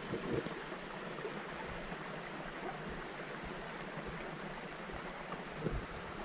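Steady rush of a muddy, rain-swollen forest creek running over rocks and logs. A few soft low thumps come near the start and again just before the end.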